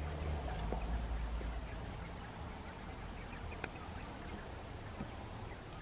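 Japanese (Coturnix) quail calling, with a few light clicks and taps.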